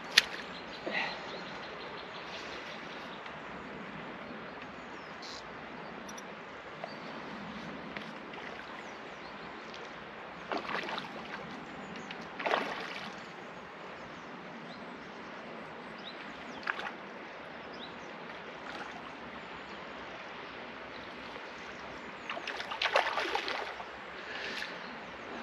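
Hooked barbel splashing at the surface while being played on rod and line, in short bursts, with a longer run of splashing near the end; a steady river wash underneath and a sharp click at the very start.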